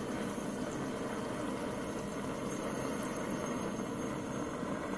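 Modified water-cooled Warpfive Stirling engine, heated by a propane burner and driving a small DC generator, running with a steady hiss and whir, throttled back to a low speed at which it no longer charges the iPod.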